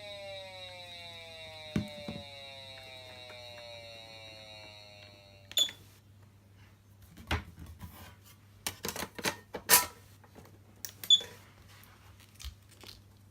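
Patlite SAP500BZ electronic siren amplifier sounding a siren tone that slides slowly down in pitch and stops abruptly with a click about five and a half seconds in, over a low steady hum. It is followed by a scattered run of sharp clicks and knocks.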